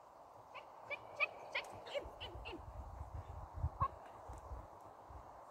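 A quick series of short, sharp animal calls, about ten within a few seconds, with a low rumble partway through.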